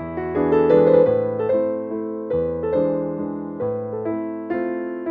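Piano music: a melody of struck notes played over held bass notes.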